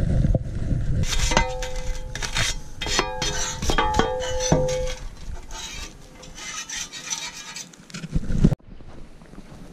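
A metal hand tool scraping and striking stony soil: a quick run of clinks and knocks, several of which ring briefly, then fainter scraping that cuts off suddenly near the end.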